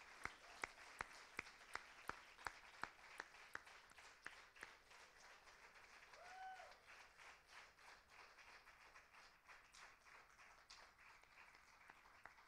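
Faint, thin applause from a small audience, with one person's claps standing out at a steady pace of about two to three a second for the first four seconds or so before dying away to light taps. A short squeak rises and falls about six seconds in.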